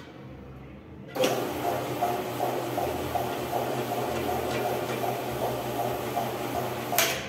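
Compact 13-inch floor polisher's 0.75 HP motor switched on by its handle lever about a second in, then running steadily as it drives a pad on the floor, with a low hum under a rough steady whirr; it cuts off near the end.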